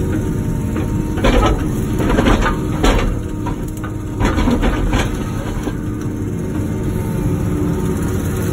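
Wacker Neuson ET145 excavator's diesel engine running steadily, with a series of loud scraping, crunching noises from about one to five seconds in as rock is shifted against rock.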